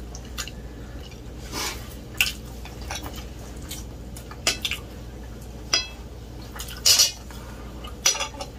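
Metal forks clinking and scraping against plates in a string of scattered sharp clinks, a few with a short ring, the loudest about seven seconds in.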